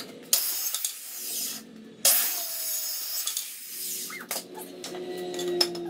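Corded circular saw cutting through a wooden board in two loud bursts, the second starting about two seconds in. Near the end come a few sharp knocks of cut wood pieces being handled on the table.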